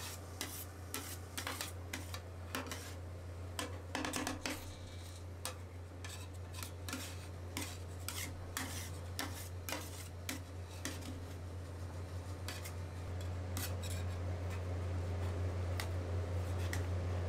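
Two metal spatulas chopping and scraping Oreo ice cream mix on a frozen stainless steel rolled ice cream pan: sharp metallic clicks and taps at an uneven pace, with scraping rubs between them. A steady low hum runs underneath and grows louder in the last few seconds.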